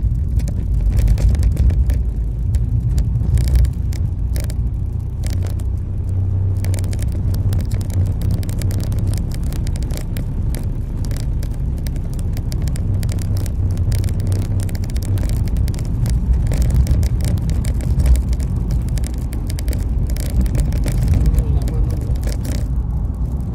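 In-cabin noise of a vehicle driving along a road: a steady low engine and road rumble, with frequent light clicks and rattles through most of it.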